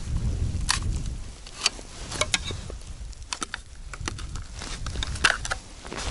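A hand ice auger being handled and set up in gloved hands: a scattered series of sharp clicks and knocks from its handle and shaft, over a low rumble.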